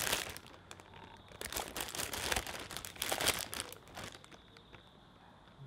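Clear plastic packaging bag crinkling as it is handled, in irregular crackly bursts that thin out over the last couple of seconds.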